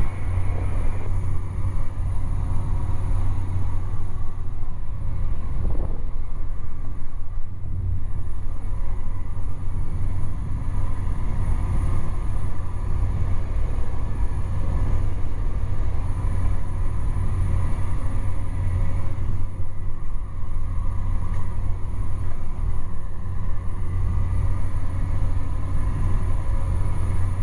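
Cessna 208 Grand Caravan's single turboprop engine and propeller running steadily in flight, heard inside the cockpit: a loud, even low drone with a faint steady whine above it.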